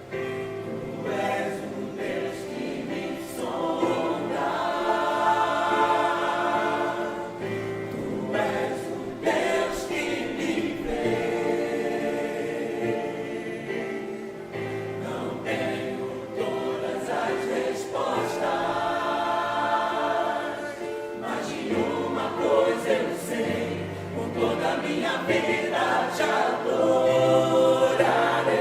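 Church choir singing a hymn together, several voices holding notes in long phrases with brief breaths between them.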